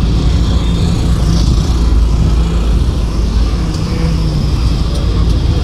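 Steady loud low rumble inside a moving bus: the bus's running gear and road noise, with street traffic around it.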